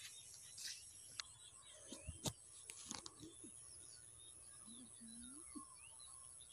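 Faint outdoor ambience: scattered bird calls and insect chirping, with a few soft clicks and knocks around the middle.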